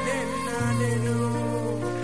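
Pop song: a sung phrase trails off about half a second in, leaving held keyboard chords over a steady bass note.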